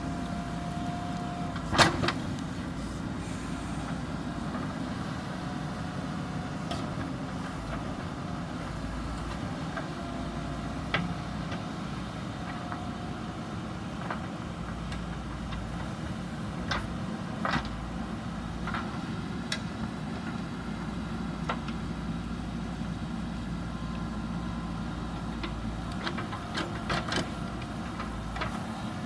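JCB backhoe loader's diesel engine running steadily under work, with occasional sharp knocks and clanks from the machine at work: the loudest about two seconds in, and a quick cluster near the end.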